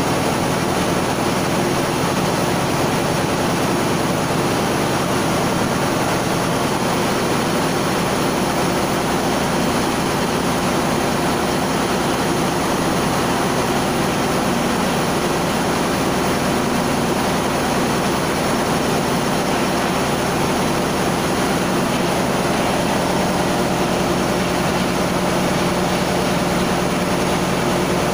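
Ship's engine-room machinery running: a loud, steady drone with several constant hums under it and no change in level.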